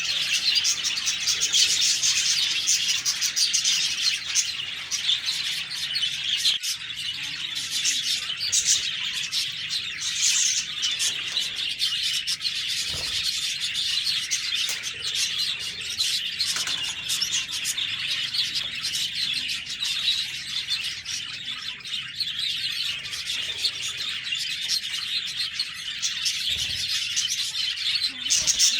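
Budgerigars chattering and chirping continuously, a dense run of quick high twittering notes without a break.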